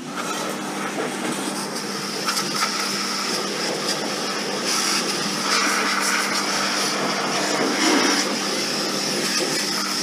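Pressure washer running: a steady motor hum under the loud hiss of the water jet spraying mud off a mini excavator's swing motor housing.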